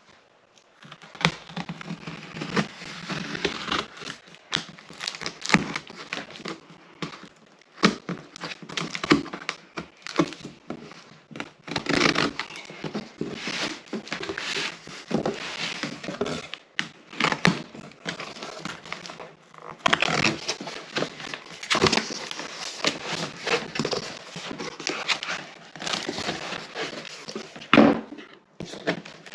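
Packaging being unwrapped and torn open: irregular crinkling and tearing of packing material, with sharp knocks and scrapes of cardboard being handled.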